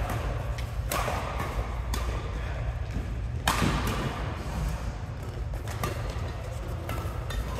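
Badminton racquets striking the shuttlecock in a doubles rally: about six sharp hits, roughly one a second or so, the loudest about three and a half seconds in, echoing in a large sports hall over a steady low hum.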